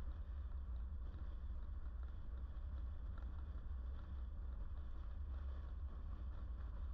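Car driving at a steady speed: an even, low rumble of road and wind noise, picked up by a GoPro suction-mounted on the passenger-side window.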